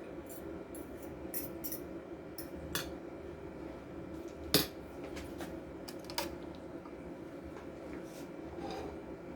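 Fork or spoon clinking against a plate or bowl while salad is eaten: a scattering of light, sharp clicks with one louder clink about halfway through.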